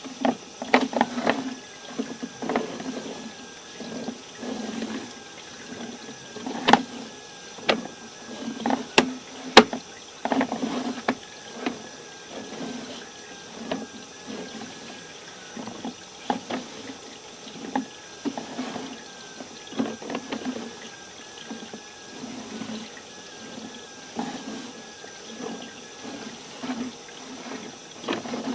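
Water running and gurgling through a sewer line, its flow rising and falling, with a few sharp knocks scattered through it.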